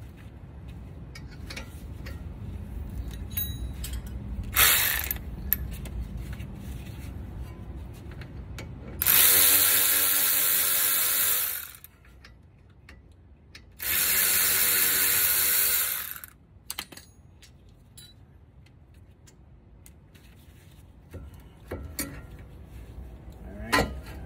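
Ratchet spinning out the 12 mm front brake caliper bolts in two steady bursts of about two and a half seconds each, one burst about nine seconds in and the second about fourteen seconds in. Short metallic clicks and knocks from handling the caliper come between and around the bursts.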